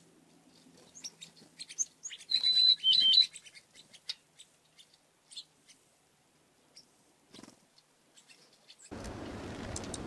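Small songbirds at a winter feeder chirping: scattered short chirps, with a brief run of clear whistled notes about two and a half seconds in as the loudest call. Near the end a steady hiss sets in.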